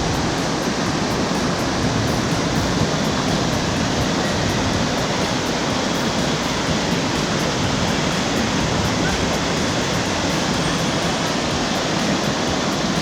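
Steady rushing of a large waterfall on the Mekong, the rapids of Li Phi falls, an even unbroken noise.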